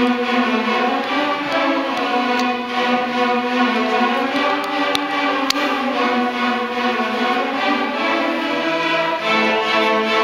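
Youth string orchestra playing live: violins and cellos bowing sustained notes that shift slowly in pitch, with lower notes joining near the end.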